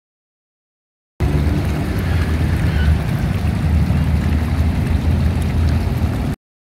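Arcing fountain jets splashing steadily into pool water, under a heavy low rumble. The sound starts abruptly about a second in and cuts off suddenly shortly before the end.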